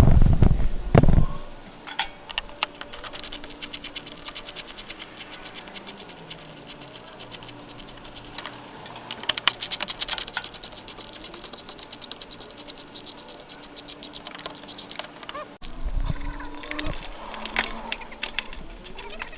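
Ratchet wrench clicking rapidly in runs as the 10 mm bolts holding a truck headlight are worked loose. There are a couple of heavy knocks at the start and more near the end.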